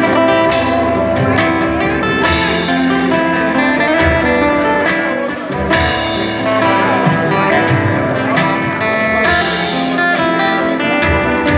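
Live band music: acoustic guitars strummed and picked over a drum kit keeping the beat.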